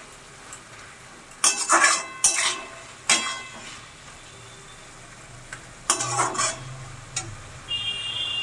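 Flat metal spatula scraping and stirring a grated ash gourd and coconut mixture in a metal wok, in several sharp scrapes with a faint sizzle between them, as the water it has released cooks off over raised heat. A thin steady high tone starts near the end.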